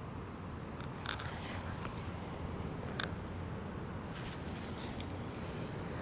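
Steady low outdoor background noise with a few faint, short clicks, the sharpest about three seconds in: hands and bodies shifting during a chiropractic adjustment of a patient lying on their back.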